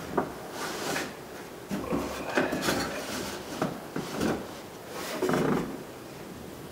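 Metal clunks, clicks and scraping as a manual window regulator is shifted and lined up against its bolt holes inside the door of a 1996 Ford F-150, with a longer rub about five seconds in.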